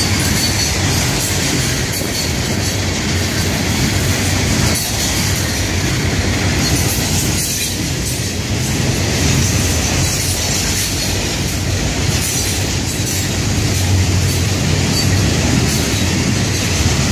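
Florida East Coast Railway freight cars (loaded hoppers and gondolas) rolling past at speed: a loud steady rumble of steel wheels on rail with continual clatter and clacks.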